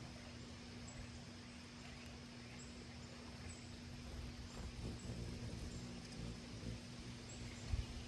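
Quiet outdoor ambience: a steady low hum under faint high chirps every second or so, with a soft thump near the end.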